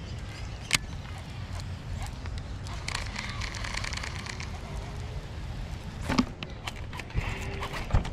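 Outdoor waterside ambience: a steady low rumble with scattered sharp clicks and faint high chirps.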